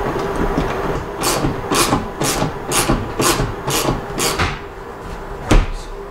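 Hand tool working a screw at a van's sun-visor mount: about seven short rasping strokes, roughly two a second, then a single sharp knock near the end.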